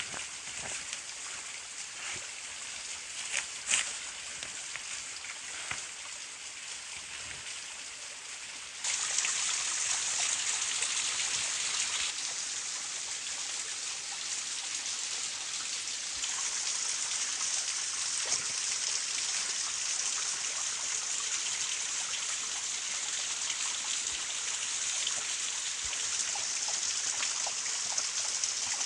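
Steady hiss of water, which jumps suddenly louder about nine seconds in and then holds. A few light clicks come before the jump.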